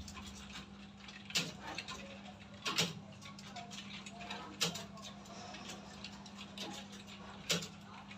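Several computer keyboards typed on at once: a steady patter of small key clicks with four louder, sharper key strikes, over a low steady hum.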